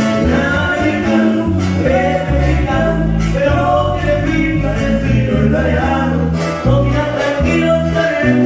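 Live sierreño band music: acoustic and twelve-string guitars over a tuba playing a stepping bass line, with drums.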